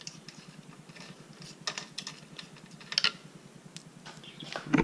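Scattered light metal clicks and taps from a hand tool and small screws as the Torx screws holding a motorcycle's ECU are taken out and handled.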